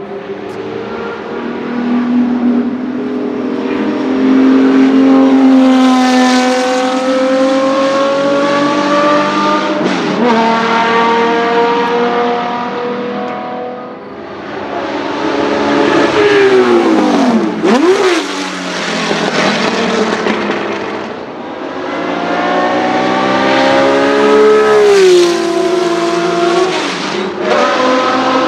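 Porsche 917K's 4.5-litre flat-12 racing engine at high revs on track. The note climbs and steps down at gear changes. A little past halfway it swoops sharply down and back up as the car passes, and it falls again a few seconds before the end.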